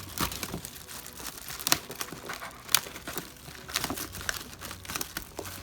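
Product packaging being opened by hand, a run of crinkling, crackling and tearing sounds.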